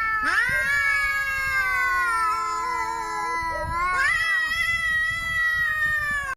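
A domestic cat yowling, the drawn-out wail of an angry cat. There is one long call, then a second that rises in pitch about four seconds in, and the second breaks off abruptly at the end.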